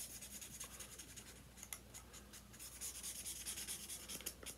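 Felt-tip marker rubbing over a cardboard toilet paper tube as it is coloured in: a quick run of short, faint scratchy strokes of the nib.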